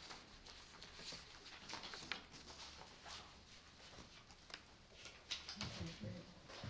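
Faint rustling and handling of paper handouts, with scattered small clicks and taps.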